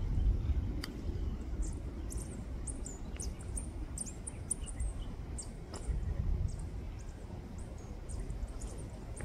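Birds chirping: many short, high-pitched chirps scattered throughout, over a steady low rumble.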